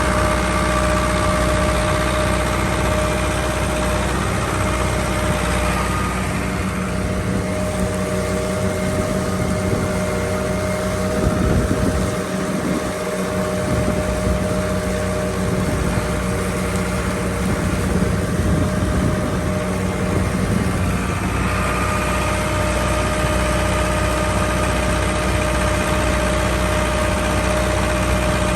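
An engine running steadily at a constant speed, a continuous drone with a steady hum and whine.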